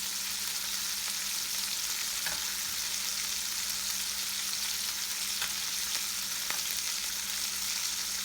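Bacon frying in a pan: a steady sizzle with a few sharp crackles.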